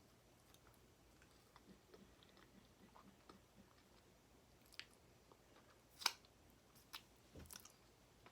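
Faint close-up chewing and wet mouth sounds of someone eating cheese-covered fries, with a few sharp clicks, the loudest about six seconds in.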